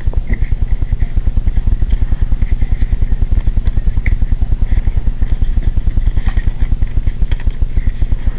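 A loud, steady low rumble pulsing rapidly, about a dozen times a second, like a running motor, with faint crinkles and clicks over it from playing cards being handled.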